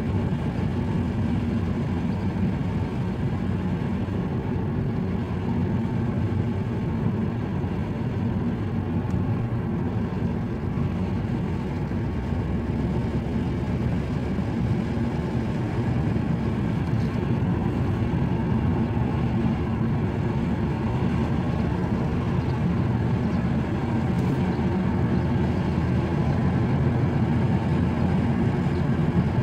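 A car driving at road speed, heard from inside the cabin: a steady low drone of engine and tyre noise.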